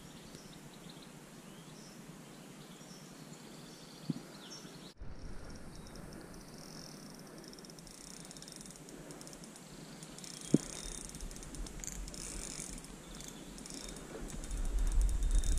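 Outdoor ambience of birds chirping and insects buzzing, changing abruptly about five seconds in, with two brief knocks. Low wind rumble on the microphone grows near the end.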